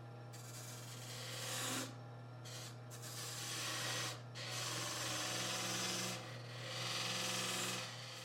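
Wood lathe running with a steady hum while the spinning wooden box is sanded in four hissing passes of about a second and a half each. Near the end the hum and the sanding cut off.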